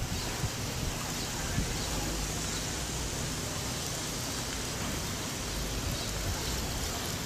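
Wind outdoors, a steady rushing hiss with uneven low rumbles as gusts buffet the microphone.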